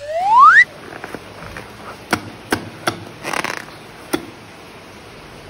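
A short squeal that rises steeply in pitch for about half a second, followed by several sharp clicks and taps and a brief rustle.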